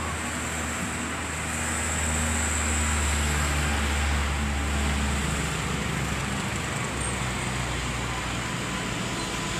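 Street traffic noise with a vehicle engine's low rumble, building over the first few seconds and fading away about halfway through.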